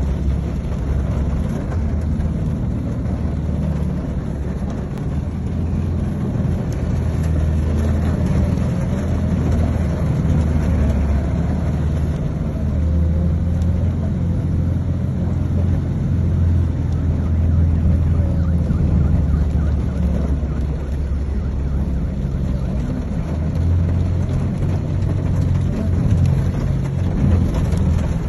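Steady low rumble of a car driving through deep floodwater, heard from inside the cabin, with an even hiss of moving water over it.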